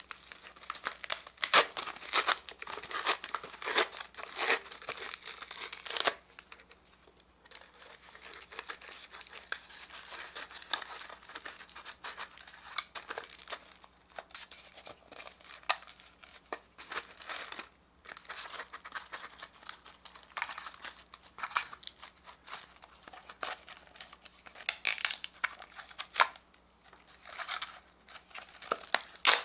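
Plastic film wrapper of a Giant Caplico wafer cone being torn and peeled off by hand, crinkling and crackling in irregular bursts. It is loudest over the first few seconds and again near the end, with quieter rustling in between.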